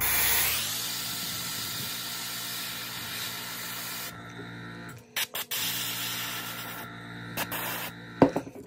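Iwata gravity-feed airbrush spraying: a steady hiss of air in two long passes, broken off for about a second a little past four seconds in, over a steady low hum. A few short clicks fall in the break and near the end.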